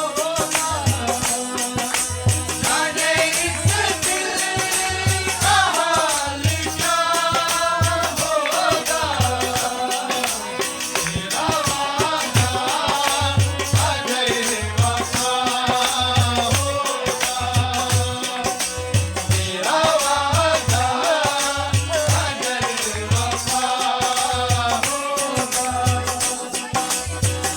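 A song: a sung melody over a steady low drum beat, with fast rattling shaker-like percussion.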